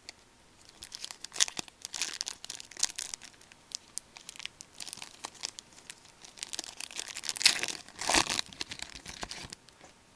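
Hockey card pack wrapper crinkling and tearing as a pack is opened by hand, with the cards rustling, in irregular crackly bursts that are loudest toward the end.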